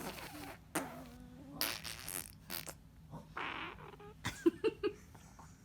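A baby farting while pushing, in several short bursts spread over a few seconds, with a few short squeaky sounds near the end.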